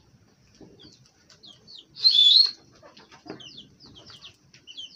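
Small birds chirping: a steady run of short, high chirps, each falling in pitch, with one louder, shrill call about two seconds in.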